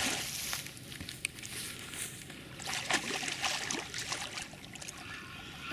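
Water splashing and sloshing around a hooked wels catfish being played at the surface, with scattered knocks and rustling.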